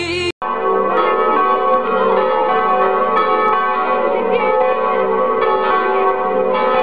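Several church bells ringing together in a continuous peal, many overlapping tones sounding at once. They come in abruptly after a brief gap at the very start.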